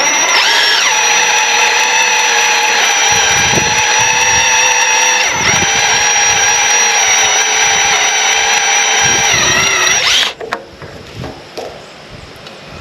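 Power-driven Stripmeister wire stripper running as a wire is fed through it and stripped: a steady, high machine whine whose pitch sags briefly near the start and again shortly before it stops, about ten seconds in. Afterwards only a few faint clicks.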